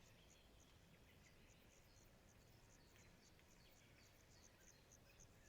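Near silence: faint forest ambience of high insect chirps repeating evenly, about three a second, with a few faint bird chirps.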